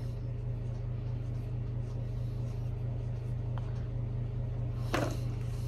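A steady low hum, with faint strokes of a brush pen on a paper marker pad and one brief sound about five seconds in.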